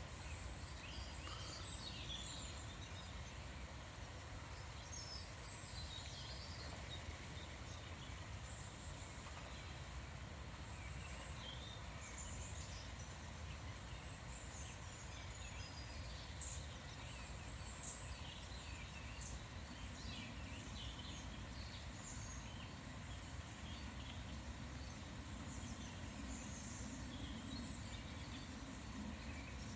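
Small birds chirping and twittering, many short high calls scattered throughout, over a faint steady low background noise.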